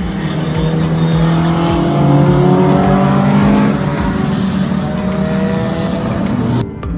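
Classic race cars' engines running hard through a corner, several engine notes overlapping, rising in pitch about two seconds in. The sound breaks off suddenly for a moment just before the end.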